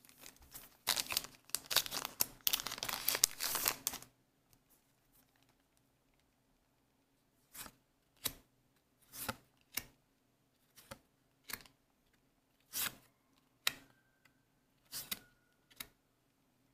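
A foil trading-card booster pack crinkling and tearing for about four seconds. Then about ten short swishes, one every second or so, as trading cards are slid off the stack one at a time.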